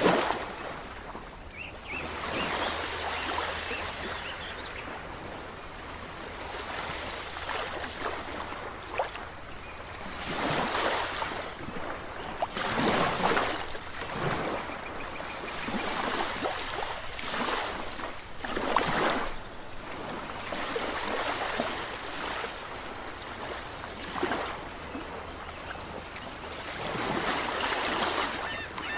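Ocean waves breaking and washing in, swelling in irregular surges every few seconds, over a faint steady low hum.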